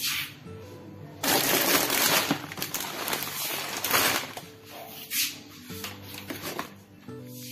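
Plastic snack packet crinkling as a hand grips and handles it, loudest for about three seconds starting about a second in, over background music.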